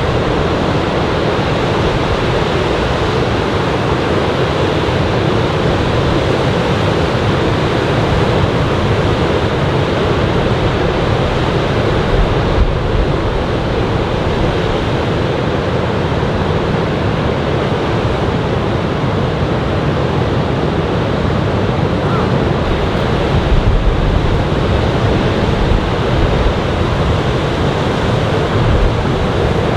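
Steady noise of surf from a typhoon swell breaking on a sandy beach. Wind buffets the microphone now and then, most in the last few seconds.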